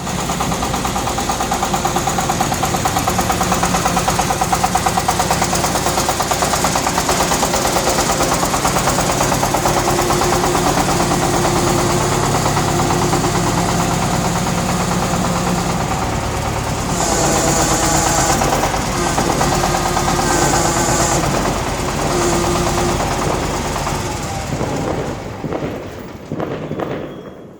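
A machine's engine running steadily with a rapid, rattly pulse. The sound changes character about two-thirds of the way through and thins out near the end.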